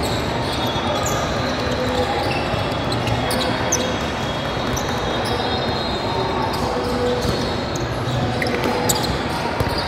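Basketball game on a gym court: a ball bouncing on the floor, short sneaker squeaks, and a steady bed of voices.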